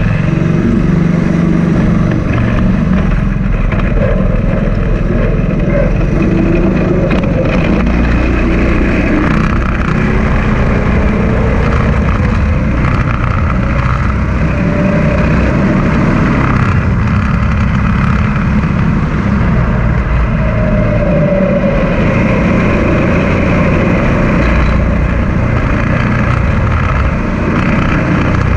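Small engine of an off-road go-kart running loudly and steadily, its pitch gliding up and down a few times as the kart speeds up and slows.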